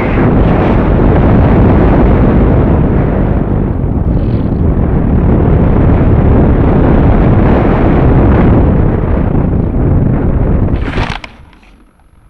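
Heavy wind buffeting on the microphone of a camera riding on an RC plane in flight, a loud rushing rumble. About 11 seconds in it ends abruptly after a brief sharp noise, leaving only a faint hum.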